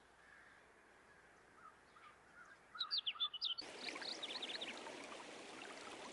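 Songbirds chirping: a quick run of short, high chirps about three seconds in, then more scattered chirps over a steady outdoor hiss that comes up suddenly just after.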